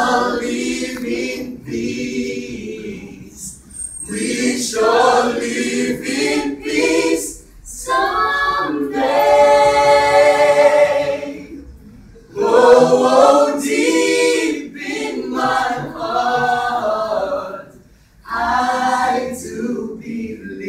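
A choir singing in phrases broken by short pauses, with one long held chord about halfway through.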